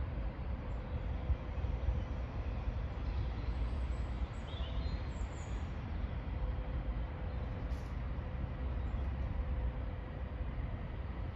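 An LNER Azuma (Class 800) train approaching in the distance: a steady low rumble with a faint hum. Birds chirp a few times around the middle.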